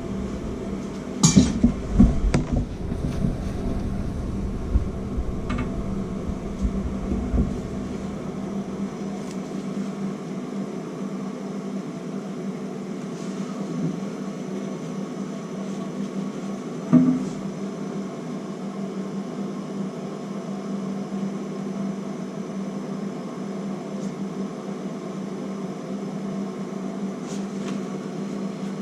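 Metal parts clinking and clattering for the first several seconds, then a steady low hum.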